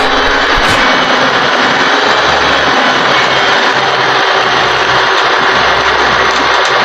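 Construction machinery engine running loudly and steadily, an even dense roar with a faint steady hum under it.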